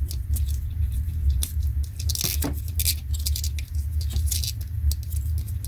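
Electrical tape pulled off the roll and wrapped around thin wires at a connector: irregular crackles and rasps from the tape and the handling, over a steady low hum.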